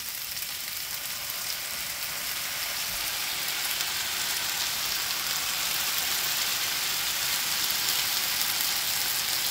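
Diced potatoes frying in a pan with a steady sizzle that grows gradually louder while thick blended green salsa is poured in over them.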